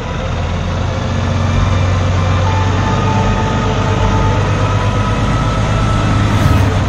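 Kenworth K200 truck's diesel engine running with a steady low drone as the truck pulls slowly past, growing a little louder near the end as it comes alongside.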